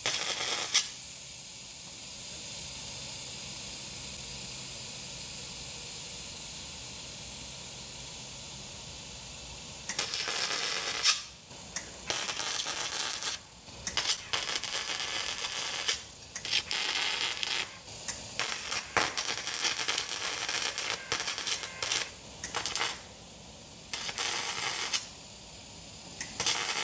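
Flux-core wire-feed welder arc crackling and hissing as a patch is welded into thin sheet steel: one longer steady run, then from about ten seconds in a series of short welds of a second or two each, with brief pauses between them.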